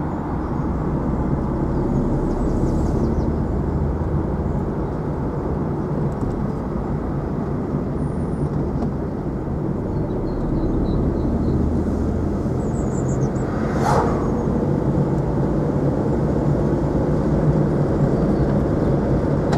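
Steady car engine and tyre road noise heard from inside the cabin while driving, with a single brief knock about two-thirds of the way through.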